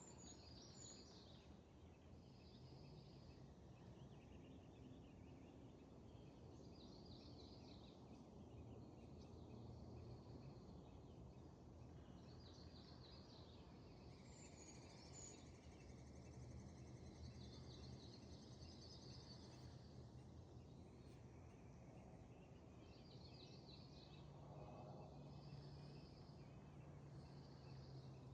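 Faint birdsong: short high-pitched chirping phrases repeating every second or two, with a longer trill partway through, over a steady low background hum.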